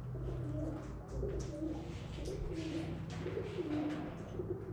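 Pigeons cooing repeatedly, a run of low warbling calls.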